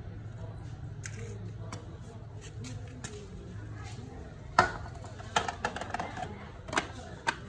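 A few sharp metallic clicks and clinks of small hand tools and parts being handled in a metal parts tray, the loudest about halfway through, over a low steady hum.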